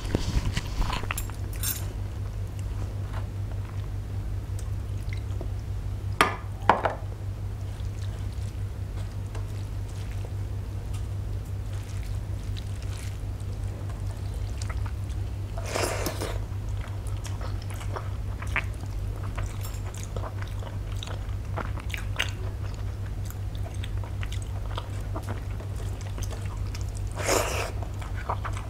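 Fingers squeezing and mixing boiled rice with salt on a steel plate: soft squishes and small ticks of fingers and grains against the metal, with three brief louder rustles about six seconds in, around sixteen seconds, and near the end, over a steady low hum.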